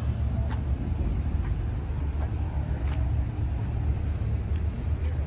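Outdoor car-park ambience: a steady low rumble, with faint footsteps of someone walking, about one step every three-quarters of a second.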